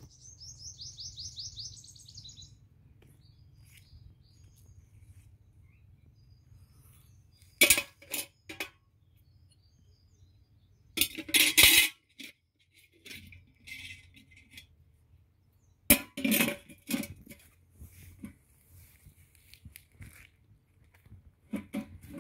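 A bird's fast repeated chirps for about the first two seconds, then loud knocks and a clattering, scraping rattle from a lidded steel can being handled on a stone wall, with its lid worked about halfway through.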